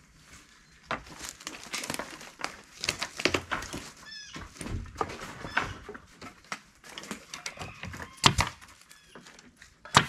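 Pneumatic nail gun driving nails into a wooden board on the house, with two loud sharp shots near the end, amid knocks and rustling as the board is handled. A brief high animal whine about four seconds in.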